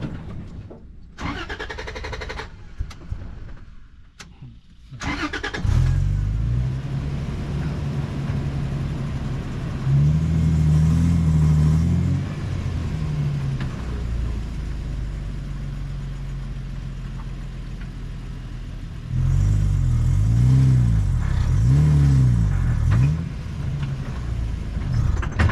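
A safari 4x4's engine runs, steps up in pitch for a couple of seconds, then revs up and down several times. This is the sound of a heavy vehicle working to get through deep sand where vehicles get stuck.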